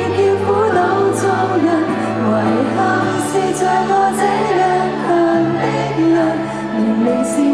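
Woman singing a Cantopop song live into a handheld microphone over pop backing music, with held bass notes and a few short high cymbal-like splashes.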